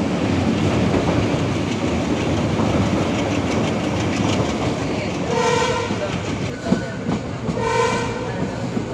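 Passenger train running along the track: the coach's steady rumble with wheel clatter on the rails. A little past the middle, the locomotive's horn sounds two short blasts about two seconds apart.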